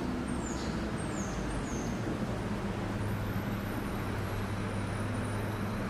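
A vehicle engine idling with a steady low hum that grows stronger about three seconds in. Three short, high, falling chirps sound in the first two seconds.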